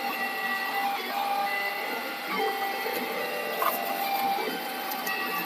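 3D printer's stepper motors running in steady whining tones that jump to a new pitch every second or so as the machine moves, with light crinkling of a thin plastic bag being handled.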